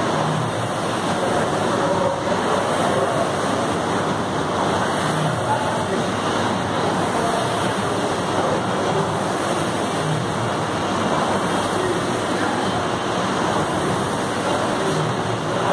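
Air rowing machine's fan flywheel spinning under hard rowing, a steady rush of air.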